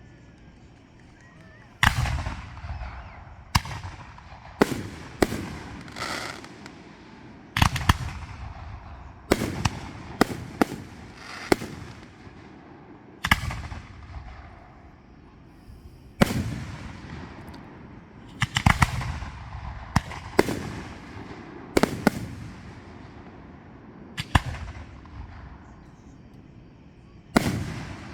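Fireworks going off: a long series of sharp bangs at irregular intervals, starting about two seconds in, each trailing off into a fading tail.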